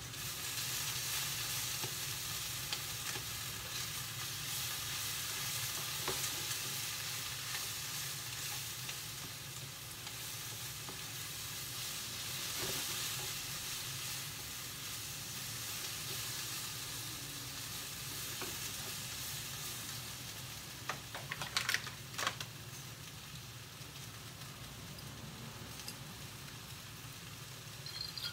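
Cabbage sizzling as it is stir-fried in a frying pan, with a utensil stirring and scraping against the pan. The sizzle eases slightly in the second half, and a few sharp clicks come about three-quarters of the way in.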